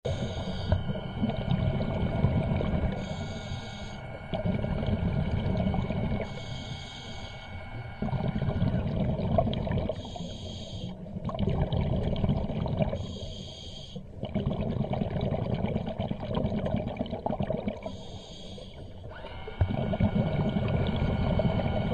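Scuba breathing through a regulator underwater: about six breaths, each a short hissing inhale followed by a longer, louder bubbling rumble of exhaled air. A faint steady whine runs underneath for much of it.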